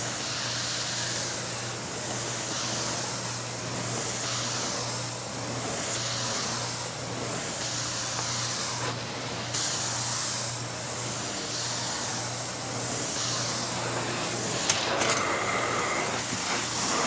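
Carpet-cleaning extraction wand passing over a rug: a steady hiss of spray and vacuum suction that swells and fades with each stroke, over a steady low hum. A few sharp clicks sound near the end.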